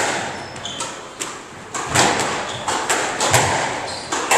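Squash ball in a rally, struck by racquets and slapping the front and side walls: sharp hits every half second or so, each ringing in the enclosed court, with a few brief high squeaks of court shoes on the wooden floor.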